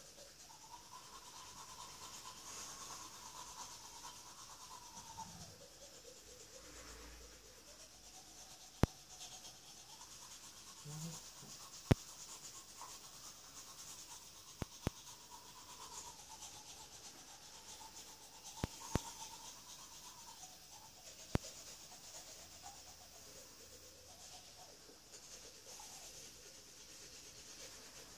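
Manual toothbrush scrubbing teeth: a steady scratchy bristle noise. About seven sharp clicks fall through the middle of the brushing.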